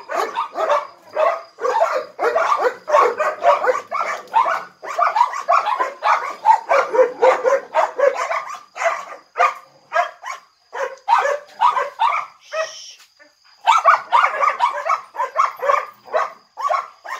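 Several dogs barking rapidly and continuously, their barks overlapping, with a brief lull about two-thirds of the way through.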